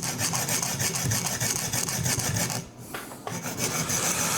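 TSProf Alpha resin-bonded sharpening stone on a TSProf Kadet guided sharpener, scraping back and forth along an oiled knife edge, with a short break a little past halfway.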